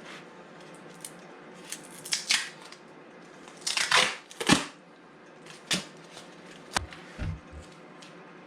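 Duct tape pulled off the roll and torn in a few short ripping rasps, the loudest pair about four seconds in, followed by a few light knocks and clicks as it is handled.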